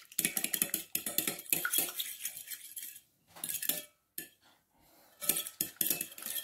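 Metal fork beating an egg in a glass bowl: rapid clinks and taps of the fork against the glass. The beating stops briefly about halfway through, then stops again for about a second before it resumes.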